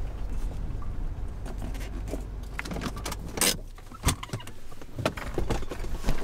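Car engine running with a low rumble heard from inside the cabin, with scattered clicks, knocks and rustles as the driver handles the seatbelt buckle and things around the centre console. The loudest sharp click comes about three and a half seconds in.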